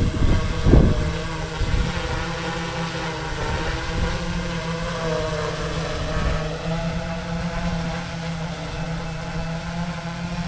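Sky-Hero Spyder 6 hexacopter hovering: its six T-Motor MN 4120 motors and APC 16x5.5 propellers make a steady hum, with higher tones that waver slightly in pitch as the motors adjust. A low rumble of wind on the microphone is strongest in the first second.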